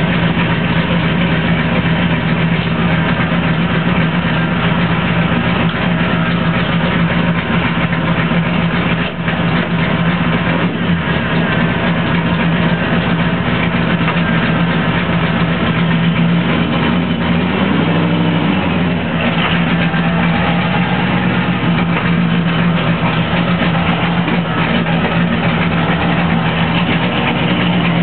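Ford 302 V8 idling steadily, heard from inside the caged Mustang's cabin, with one brief rise and fall in engine speed about two-thirds of the way through.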